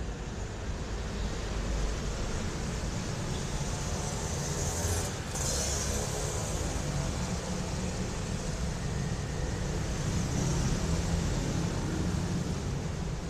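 Motor vehicle running with steady low rumble and road noise, with a brief hiss about five seconds in.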